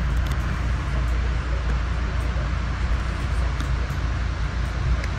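Steady low rumble and hiss of a Metro-North passenger coach rolling along the track, heard from inside the car.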